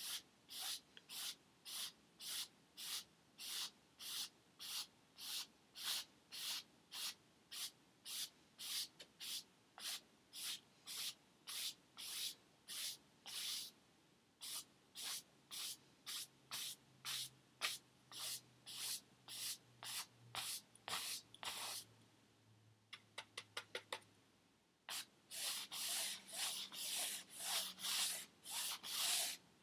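Paintbrush bristles scrubbing across a stretched canvas in quick, even strokes, about two to three a second. A little past the middle the strokes pause, come in a short flurry of quicker dabs, then resume more densely near the end.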